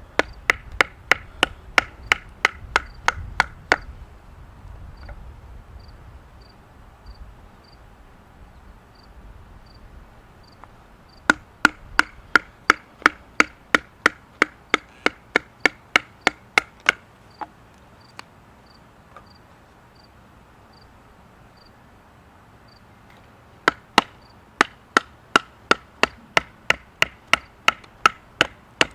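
A wooden baton striking the spine of a serrated pocket knife, driving the blade through a stick to split it. The sharp knocks come in three runs of quick, steady blows, about three a second, with pauses between.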